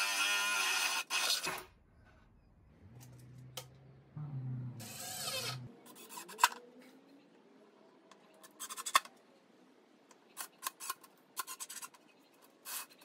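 Cordless drill boring through a pine board for about a second and a half, then stopping. Later a cordless driver runs in short spurts, driving screws through a steel lazy susan bearing plate into the wood.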